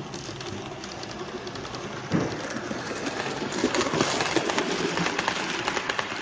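Model train running past close by: steady running noise from the model's motor and wheels that gets louder about two seconds in, then rapid clicking as the coach wheels pass over the rail joints.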